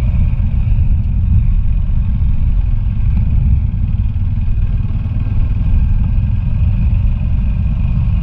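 Motorcycle riding at speed on a dirt road, the engine and passing air making a steady low rumble.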